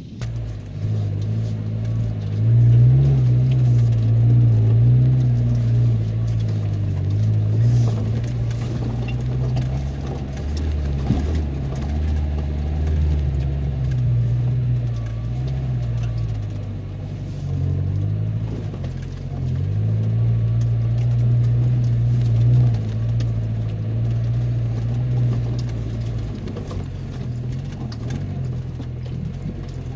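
Car engine running at low speed, heard from inside the cabin while driving slowly over a rough, rocky dirt track; its low hum rises and falls a little, with scattered knocks and rattles from the bumps.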